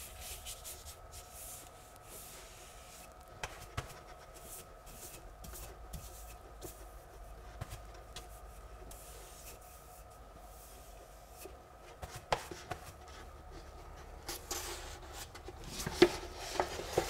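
Wallpapering brush stroking a pasted paper backscene onto a wall: faint, repeated swishes of bristles over paper, with a few light knocks, the sharpest about twelve seconds in and near the end.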